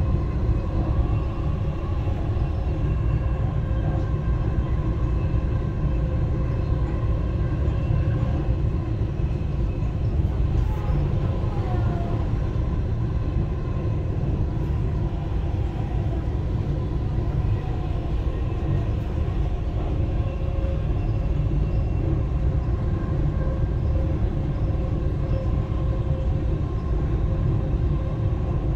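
Dubai Metro train running between stations, heard from inside the car: a steady low rumble with a steady whine above it.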